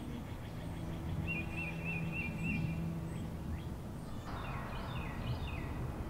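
Soft background music with sustained low notes and a repeating high chirping figure, joined about four seconds in by a few quick falling high chirps.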